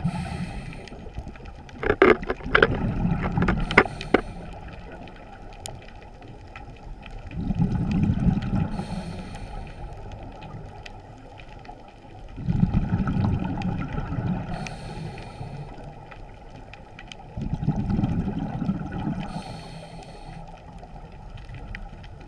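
Scuba diver's regulator breathing underwater: a bubbling exhalation about every five seconds, each followed by a short hiss of inhalation. A few sharp clicks come about two to four seconds in.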